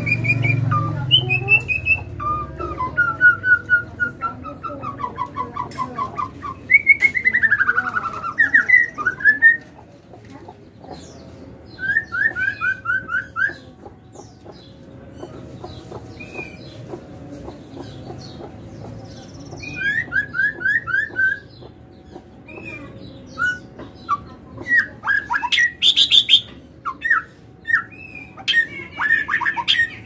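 Songbird's mating song: short phrases of rapid trilled notes, some sliding down in pitch, broken by pauses of a second or two.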